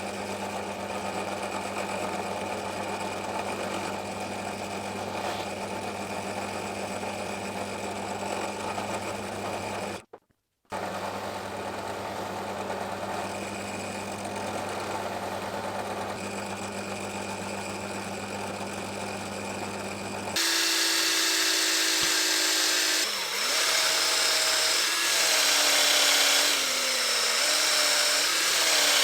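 Electric power tool running steadily with a constant hum, broken by a short cut about ten seconds in. About twenty seconds in it gives way to a louder, higher-pitched power tool whose whine shifts up and down in pitch.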